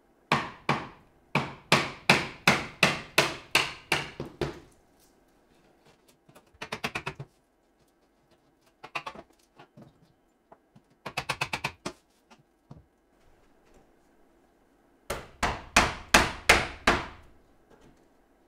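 Hammer blows on old nailed timber trim, about three a second, in a long run at the start and another near the end. Short bursts of lighter, rapid tapping come in between.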